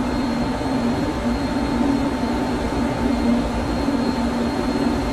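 Steady drone of a ship's engine-room machinery and ventilation: a constant low hum and rumble with a thin, high steady whine over it.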